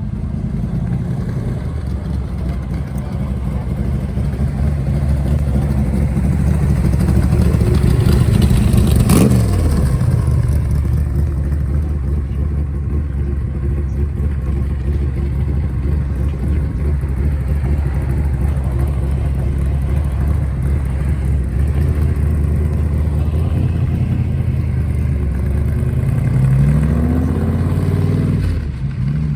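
Loud, deep rumble of a car engine running close by. About nine seconds in a vehicle passes with its pitch dropping quickly, and near the end an engine revs up in quick rising pulls as it accelerates away.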